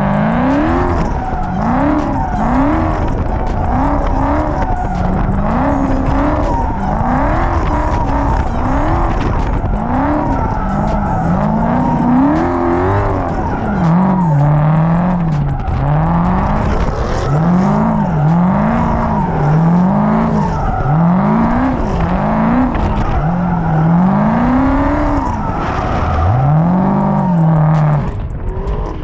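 Car engine revving up and falling back about once a second while its tyres squeal in a long skid, as a car spins its wheels in a street takeover.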